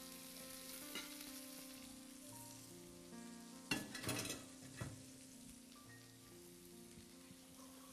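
Salmon steaks frying in hot oil in a pan, with a steady low sizzle. A little under halfway through there is a short cluster of knocks and clinks of kitchen utensils against cookware.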